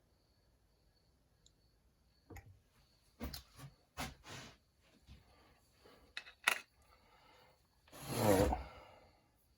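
A few scattered knocks and clicks of something being handled, then a louder rush lasting about half a second near the end.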